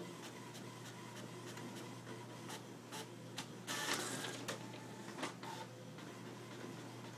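HP inkjet printer printing, a steady mechanical run with faint regular ticks, while a cat paws at the sheets coming out; the paper gives a loud rustle about halfway through, with a few smaller rustles around it.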